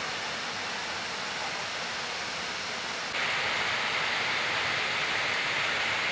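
Steady hiss of cabin air-conditioning in a parked Boeing 787-8, growing louder and brighter about three seconds in.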